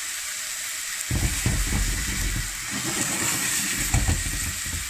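Chopped onion frying in olive oil in a pot: a steady sizzling hiss. From about a second in, low rumbling and a few knocks join it until near the end.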